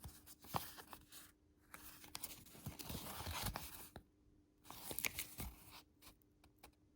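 Paper being handled and rustled in three bursts, with a few small clicks and taps.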